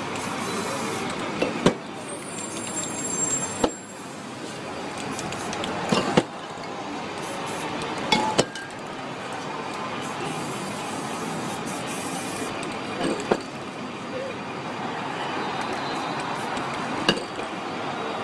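Brief hisses of aerosol spray paint over steady street traffic noise, with about six sharp knocks or clicks spaced a few seconds apart.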